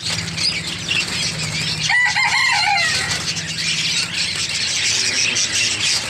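Many caged pet birds chirping and squawking together, with wings fluttering as a hand reaches into one of the cages. A longer call falls in pitch about two seconds in.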